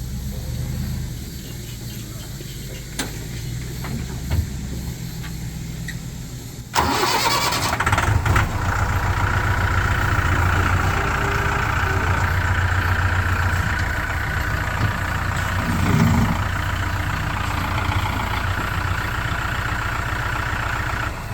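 Tractor engine running. About seven seconds in it suddenly gets louder and holds there under load with a steady whine, as the front bucket is pressed down to lift the tractor off the ground.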